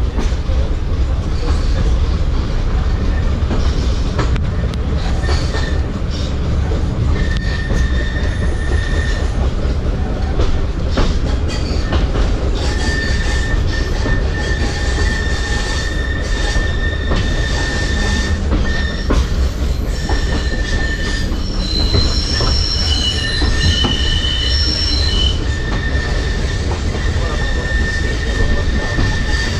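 Schindler Waggon Be 4/6 tram running along the track, heard from inside the passenger cabin: a steady low rumble of wheels on rail. A thin high squeal comes and goes from about seven seconds in, with a higher-pitched squeal joining it a little past the middle.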